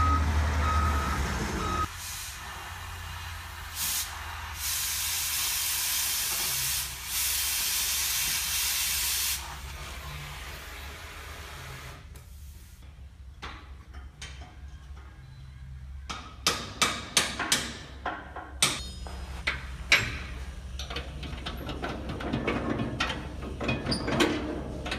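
Wheel loader's backup alarm beeping, cut off about two seconds in. Then a welding arc hissing in several long stretches, and near the end a run of sharp metal clinks and knocks from tools working on a steel snowplow frame.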